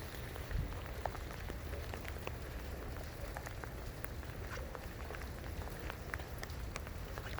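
Rain falling, with many scattered drops ticking close by over a steady low rumble.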